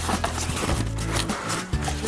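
Cardboard package being handled and opened, with irregular rustling, scraping and tapping of the box, over background music with a steady bass line.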